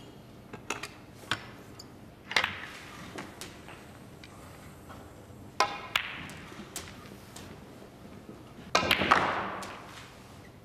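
Snooker balls clacking: cue-tip strikes and balls colliding on the table, a handful of sharp separate clicks with the loudest cluster of clacks near the end.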